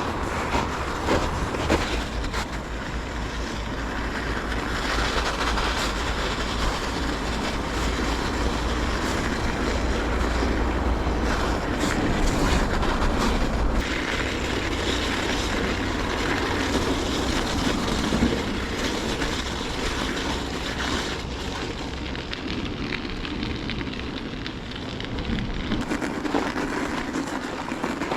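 Bicycle riding over crusted snow: steady rolling and crunching noise from the tyres and bike, with wind rumbling on the microphone.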